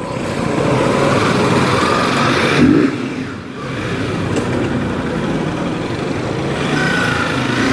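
Motorcycle being ridden: the engine running under a dense rush of road and wind noise. It is louder over the first three seconds, dips briefly, then holds steady.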